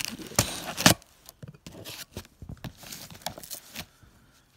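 Cardboard shipping box being handled and torn open: tearing and rustling of cardboard, with two loud rips in the first second, then softer scattered rustling.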